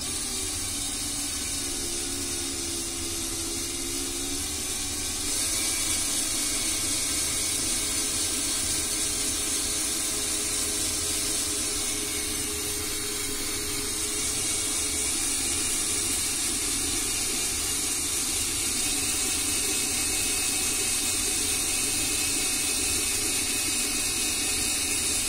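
Cordless drill motor running steadily, spinning a wooden dowel as wire is wound onto it into a coil for chainmail rings. The drill gets a little louder about five seconds in.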